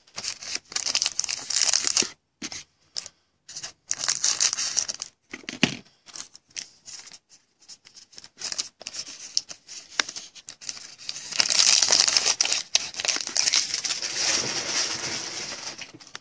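Trading card pack wrappers being torn open and crinkled, in irregular bursts of rustling with short pauses between them. The longest and loudest stretch comes about two thirds of the way through.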